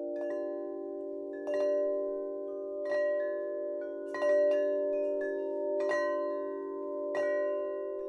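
Slow ambient music: bell-like chime notes struck about every one and a half seconds, each ringing out over a steady, low, sustained drone.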